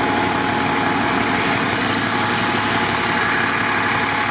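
Heavy engine idling steadily, typical of a fire truck parked and running at a fire scene.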